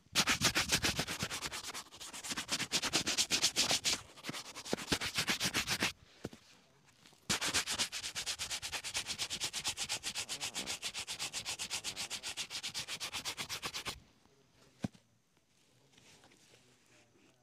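A shoe brush buffing a black leather boot in rapid, even back-and-forth strokes, about six a second. It runs in two long bursts, with a short pause about six seconds in, and stops about fourteen seconds in. A single sharp tick follows shortly after.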